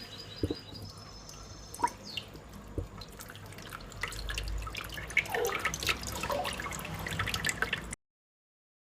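Water dripping and splashing from a tap into a sink as a small pet bird bathes, with quick little splashes that get busier about halfway through.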